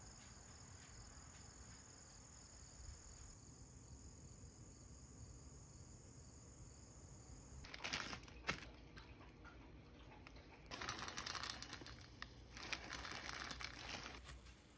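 A plastic instant-ramen packet crinkling as it is handled, in three bursts of rustling through the second half. Before that, a faint, steady high-pitched outdoor hiss.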